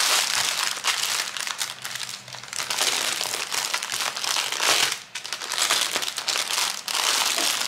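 Clear plastic packaging crinkling as it is handled: a bag of small sachets of diamond-painting drills being pressed, folded and rolled between the fingers. Irregular crackling with a brief lull about five seconds in.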